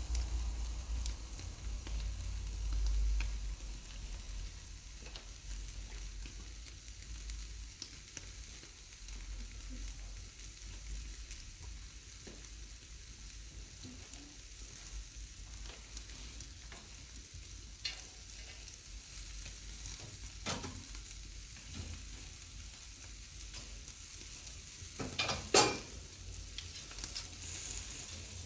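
Ribeye steak sizzling as it sears on a hot cast-iron grill over wood embers: a steady hiss with scattered small crackles, and a brief cluster of louder pops near the end.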